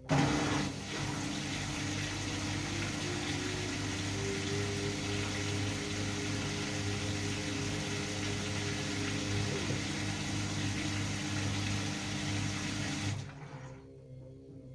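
LG FH0B8ND front-loading washing machine with water rushing through it over a steady low hum. It starts abruptly and cuts off about a second before the end.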